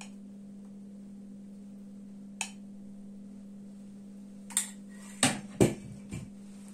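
Five short knocks and clinks of a kitchen utensil against a dish, the two loudest close together just past five seconds in, over a steady low hum.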